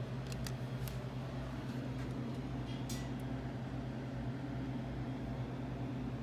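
Dover elevator travelling down: a steady low mechanical hum, with a few light clicks.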